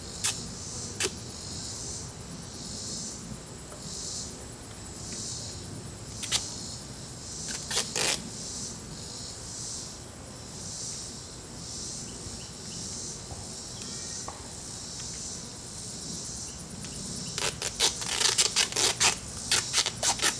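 Insects chirping in a steady high pulsing rhythm, about one pulse a second. A few sharp clicks sound early and around the middle, and a quick run of clicks and knocks from handling starts near the end.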